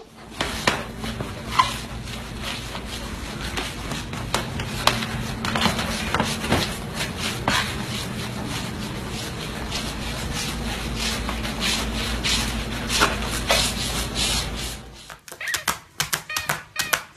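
Flat floor mop pushed over a hardwood floor while a corgi puppy hangs on to the pad: a steady rubbing hiss with scattered knocks and clicks. About fifteen seconds in, it gives way to quicker, sharper clicks and taps.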